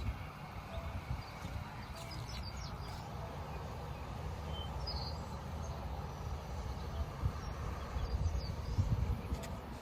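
Outdoor ambience: a steady low rumble with short, faint bird chirps now and then.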